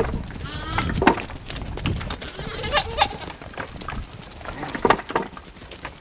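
A flock of sheep bleating several times, short wavering calls from different animals, with scattered sharp clicks.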